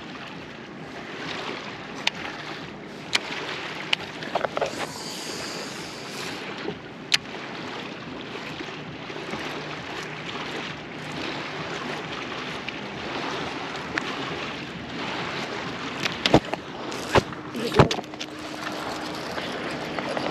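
Water lapping against a kayak hull, with sharp clicks and knocks now and then from handling the rod and baitcasting reel, several close together near the end.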